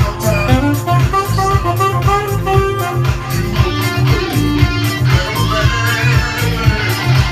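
Music with a steady beat, heavy bass and a melodic lead line on top.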